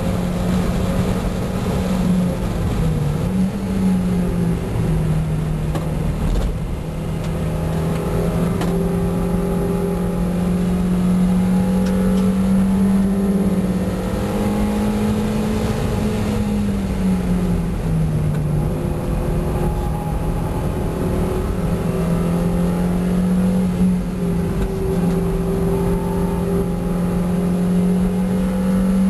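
A 1990 Mazda MX5's 1.6-litre four-cylinder engine running hard at high revs on a race track. Its pitch drops and climbs back several times as the car brakes, shifts and accelerates through the corners.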